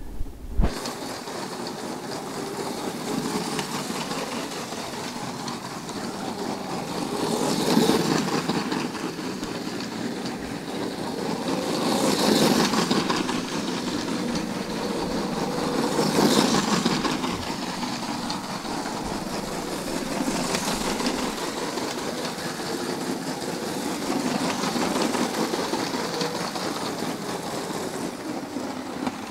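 Lego City high-speed passenger train's battery-powered train motor running, its wheels whirring and rattling over plastic track, swelling louder about every four seconds. A sharp knock just after the start.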